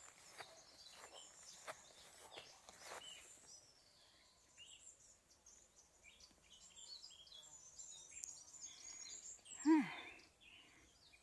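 Small birds chirping and twittering in short high notes, with a few faint clicks early on. Near the end comes a single short voiced sound falling in pitch, the loudest moment.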